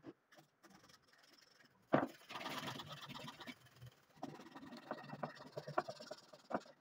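Wooden pieces being handled on a wooden floor: a sharp knock about two seconds in, then scraping and a run of small clicks of wood against wood.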